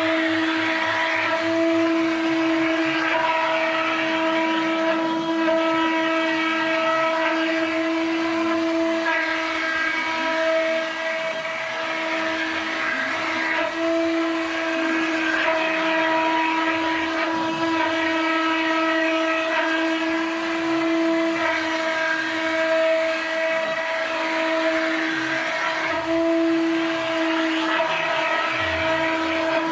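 CNC router spindle running with a steady, high whine, with cutting noise on top, as the cutter faces the machine's MDF bed at a feed of 18 metres a minute.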